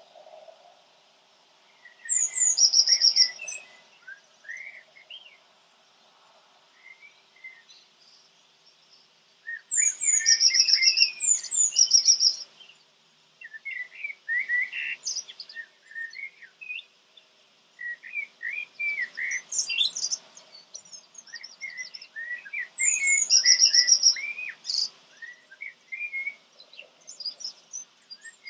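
A songbird singing in short phrases of high chirps and quick trills, each phrase a second or two long and repeated every few seconds, with scattered chirps in between.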